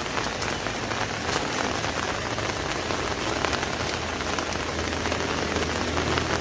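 Steady rain pattering on an umbrella, a dense hiss full of small drop taps. Near the end a vehicle engine starts to rise underneath.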